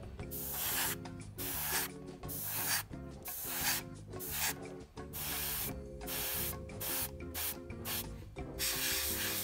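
Gravity-feed airbrush hissing in a long series of short bursts, about one a second, as the trigger is pressed and released to spray thinned faded olive drab for fading and streaking. Soft background music plays underneath.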